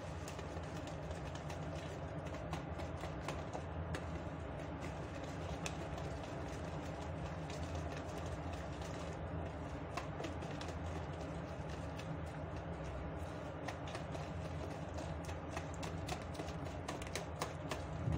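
A whisk stirring chocolate cake batter in a plastic bowl, its wires clicking lightly and irregularly against the bowl, over a steady low hum.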